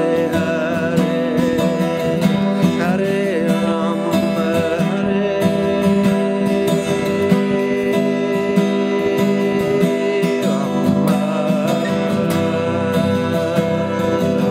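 Steel-string acoustic guitar strummed in a steady rhythm of chords, with a wavering melody line over it.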